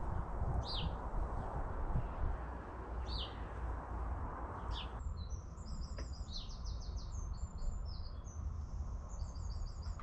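Garden birds singing. First come short, high, falling chirps every second or two. From about halfway a quicker song of very high repeated notes comes in short runs. A low steady rumble runs underneath.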